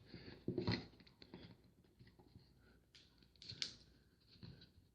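Trading cards being handled at a table: a few faint, short rustles and light taps.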